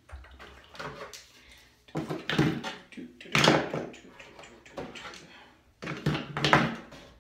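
Spring clamps being pulled off a vacuum-formed plastic shell and set down on a table: three short bursts of clacking and plastic handling, about two, three and a half, and six seconds in.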